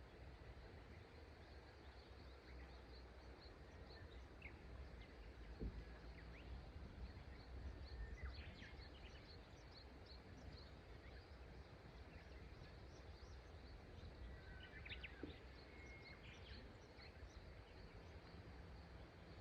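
Faint outdoor ambience by a river: scattered short bird chirps and calls over a quiet, steady background with a low rumble, busiest about eight and fifteen seconds in.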